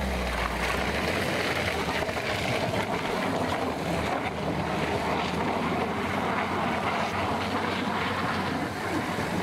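Steady rushing, splashing noise of a Peugeot 2008's tyres churning through wet mud and puddles as it crawls along a rutted track.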